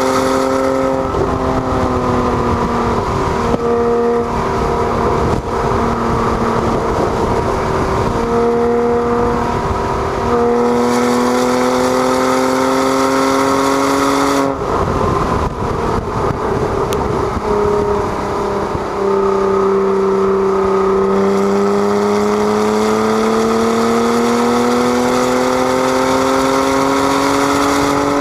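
A 2012 Porsche Cayman S's 3.4-litre flat-six on track, heard from inside the cabin: the engine note climbs and steps down at several gear changes, breaks off about halfway through as the driver lifts, then pulls steadily up in pitch through the last several seconds, over wind and road noise.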